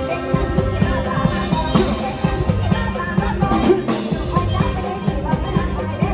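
Isan-style band music: a keyboard playing a wavering melody over a drum kit keeping a steady beat.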